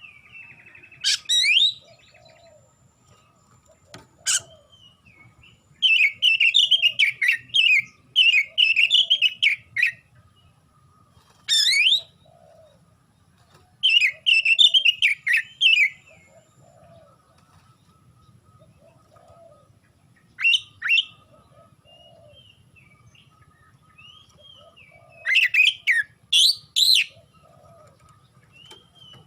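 Oriental magpie-robin (kacer) singing in loud bursts of rapid, varied whistled phrases, each a second or a few seconds long, separated by pauses of several seconds.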